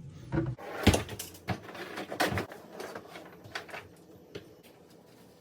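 Scattered knocks and clicks of objects being handled and set down, the sharpest about a second in, growing fewer and quieter toward the end.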